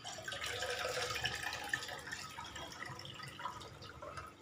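Liquid being poured into a cooking pot: a splashing pour that starts abruptly and tapers off after about three seconds.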